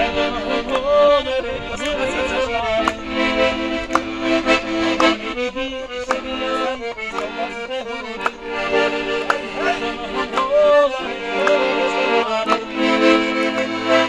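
Button accordion playing an Avar folk tune, with a voice singing over it at times.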